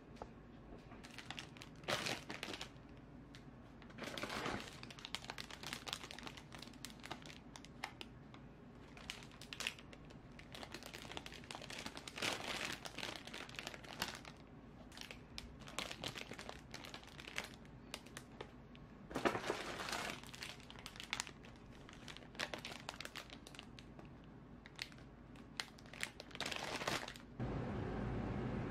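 Clear cellophane bread bags crinkling and rustling in irregular bursts as the pastries inside them are handled and set down. Near the end this gives way to a steady low hum.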